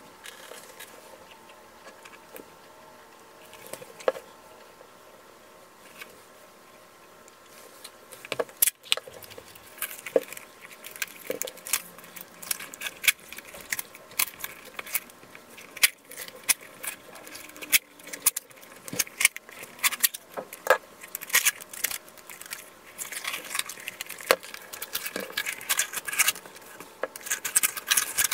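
Masking tape being pulled off the roll and pressed around a climbing shoe: crackling, ripping clicks of the tape peeling away, mixed with handling rustle. After a quiet stretch with a few soft clicks, the crackling starts about eight seconds in and grows dense and irregular.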